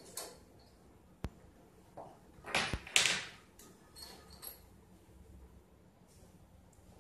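Stainless-steel parts of a cream filling machine handled while it is taken apart: a sharp metallic click about a second in, then a louder scraping clatter around three seconds in, and a few lighter taps after.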